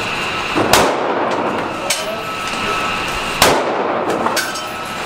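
Two pistol shots from a .40 Glock, about two and a half seconds apart, each sharp crack ringing off the walls of an indoor range, with fainter cracks between them.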